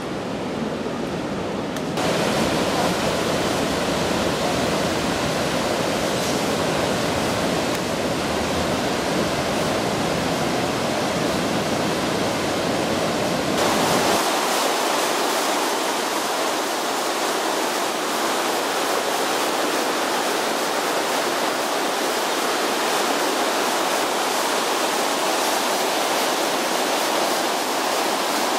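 White water rushing steadily over a river weir under a bridge. It grows louder about two seconds in, and about halfway through the low rumble drops out, leaving a brighter hiss.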